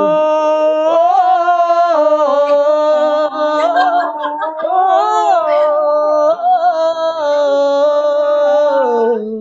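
A single voice singing a Hindi film-song melody unaccompanied, drawing out long held notes with a wavering pitch. The voice slides down near the end and stops.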